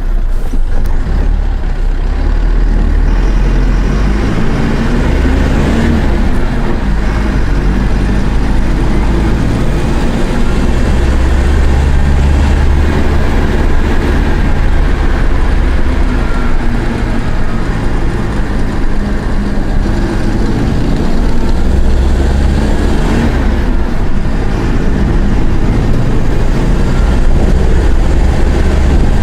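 Mercedes-Benz OF-1418 bus's inline-six diesel engine running under way, its note rising and falling as it is worked hard through the gears.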